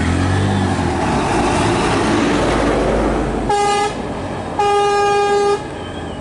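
A bus engine running and its tyres rushing as it passes close by, then a vehicle horn sounds twice at one steady pitch: a short honk, and a longer one about a second later.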